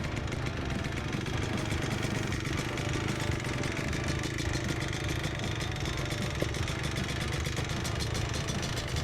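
Yamaha Blaster 200 big-bore single-cylinder two-stroke ATV engine running steadily. The owner says its top end is weak.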